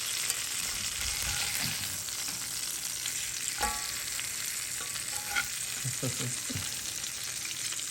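Hot fat sizzling in the pan under a skin-side-down roasted Cornish game hen as a spatula scrapes and lifts the crisp skin off the pan bottom. There is a sharp clink about three and a half seconds in.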